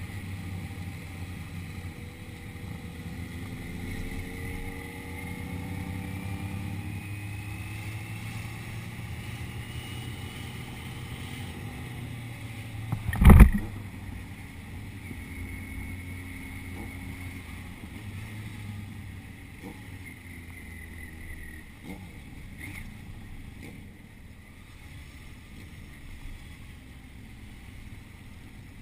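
An engine running with a steady low hum, its pitch gliding up and down in the first half. There is one loud sharp knock about thirteen seconds in.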